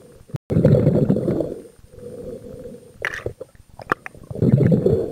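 Muffled underwater noise on a diver's camera: low rumbling surges about every two seconds, with a cluster of short clicks and ticks a little past the middle.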